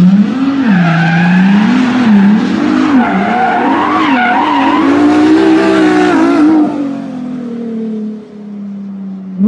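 2001 Ford Fiesta's petrol engine, which has a misfire, being revved up and down repeatedly, then easing off to a steadier, quieter running note about two-thirds of the way in.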